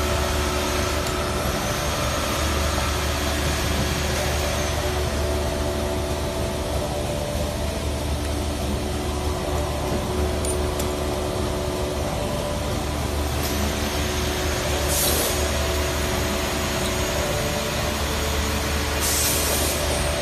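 Steady low hum of running workshop machinery, with several steady tones over a noisy background. Two brief hisses of air cut in during the second half, the second one longer and near the end.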